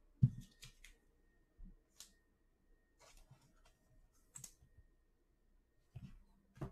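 Trading cards being handled by hand: quiet, scattered clicks and soft taps of card stock against fingers and other cards, with one sharper click just after the start.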